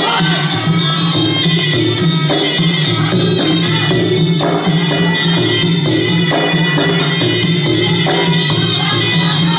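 Traditional Kun Khmer ringside fight music playing continuously: a sralai oboe melody over skor drums and small ching hand cymbals.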